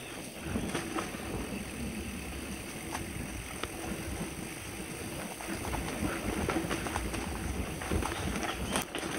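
Mountain bike rolling fast down a rough dirt trail: tyre noise on dirt and loose gravel, with the bike rattling and clicking over bumps and wind on the helmet microphone. It gets a little louder in the second half.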